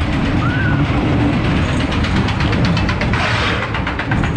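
Reverchon spinning wild mouse roller coaster car rolling along its steel track: a steady rumble with rapid, evenly spaced clicking from the wheels. A brief rush of wind noise comes about three seconds in.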